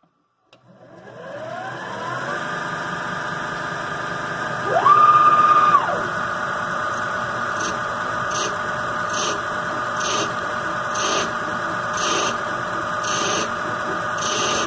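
Homemade CNC lathe starting up: the spindle motor's whine rises in pitch about half a second in and settles into a steady run. Around five seconds in a louder whine rises, holds for about a second and falls as an axis drive moves the tool up to the aluminium stock. From about eight seconds short bursts recur about once a second as the tool turns the aluminium.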